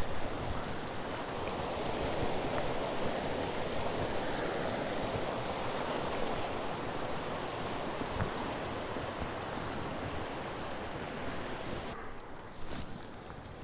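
Shallow river water running over rocks in a steady rush, softening near the end.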